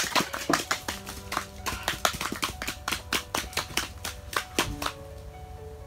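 Rapid, uneven clicking and tapping of fishing gear being handled at the ice hole, several clicks a second, stopping a little before the end.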